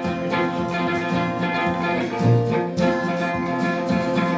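Instrumental passage of a song played by a small band: strummed acoustic guitar with electric guitar and upright bass, no singing.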